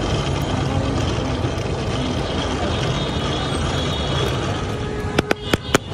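Steady roadside traffic rumble, with a quick run of five or six sharp clicks about five seconds in.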